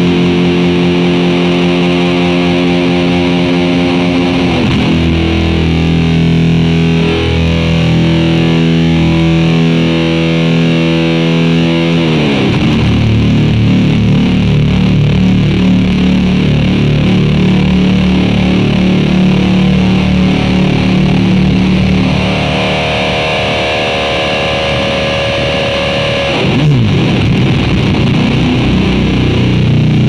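Heavily distorted electric guitar, a Gibson SG played through a homemade clone of the EarthQuaker Devices Life Pedal into a Marshall JCM 800 amp, playing long held chords. The chords slide to new ones three times.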